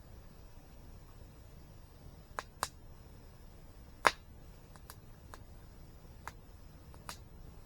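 Campfire crackling: scattered sharp pops and snaps from burning wood, about seven in a few seconds, the loudest about four seconds in, over a faint steady hiss.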